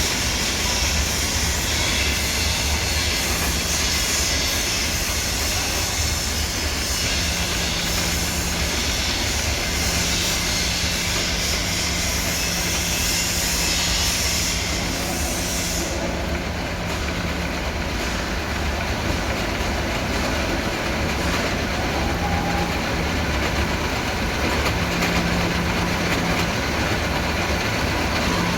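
Lathe running steadily: a constant low hum with a hiss over it, and the upper part of the hiss falls away a little over halfway through.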